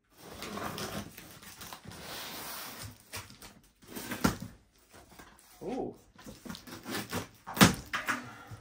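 Large cardboard box being opened by hand: flaps pulled back and blue packing tape peeling and tearing, with rustling and short squeaky peeling sounds and two sharp snaps, about four seconds in and near the end.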